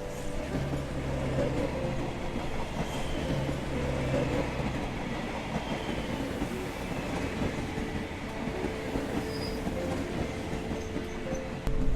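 Steady rumbling running noise of a moving vehicle with low humming tones, and a louder jolt near the end.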